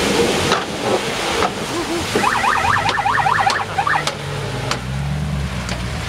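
A fast electronic warbling siren, sweeping up and down about five times a second, sounds for about two seconds starting about two seconds in. Beneath it, a Land Rover Series 1 engine runs as the vehicle drives through muddy water.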